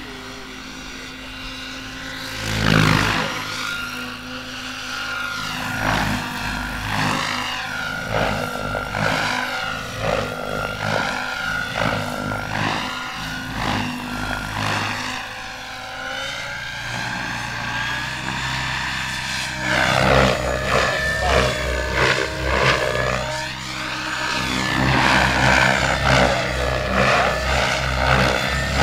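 SAB Goblin Kraken 700, an electric 700-size radio-controlled helicopter, in flight. The whine of its rotor and motor rises and falls in pitch again and again as it manoeuvres.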